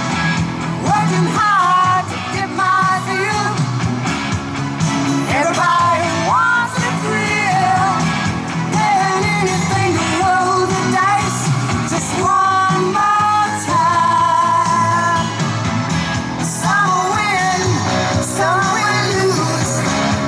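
A woman singing into a microphone over pop-rock backing music, her sung melody gliding and bending above a steady accompaniment.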